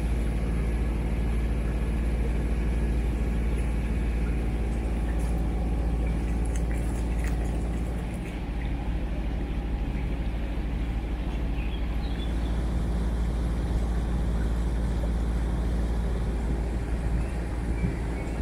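A sailing boat's engine running steadily as the boat motors along under way, a deep, even hum.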